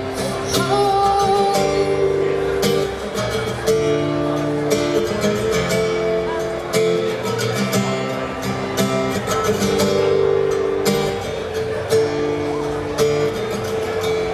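Live music: an acoustic guitar strumming chords.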